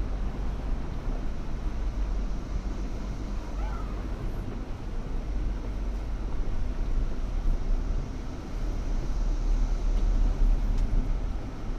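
Off-road 4x4 vehicle driving a trail: a steady low engine and drivetrain rumble that swells somewhat past the middle.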